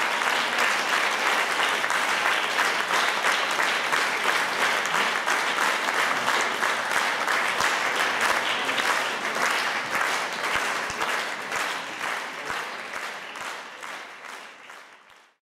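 Theatre audience applauding, a dense steady clapping that thins out and fades away near the end.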